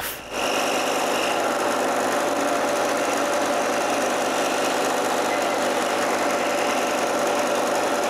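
Scroll saw running and cutting a wooden workpiece: a steady buzzing hum of the reciprocating blade that starts up just after the beginning and then holds an even level throughout.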